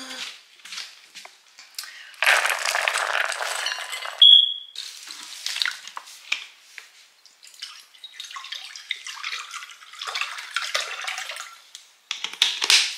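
Dry pet kibble poured from a scoop rattles into a plastic bowl about two seconds in, followed by one short high chirp from a smoke detector low on battery. In the second half, water is poured from a plastic bottle into a pet's water bowl.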